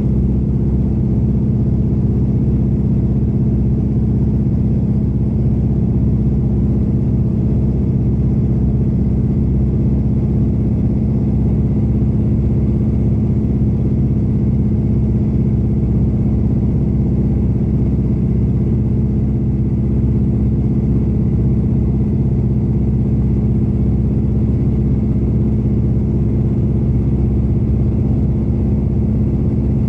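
Antonov An-2's nine-cylinder radial engine running steadily in flight, heard from inside the cabin: an even, low drone that holds one pitch throughout.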